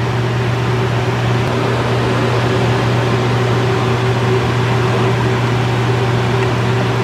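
Steady low hum and even hiss of a kitchen range-hood fan running over a large stockpot of water at a rolling boil.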